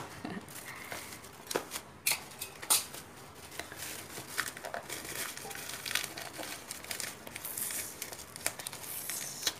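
Packaging being crumpled and handled: irregular crinkling and rustling with many small sharp clicks and snaps.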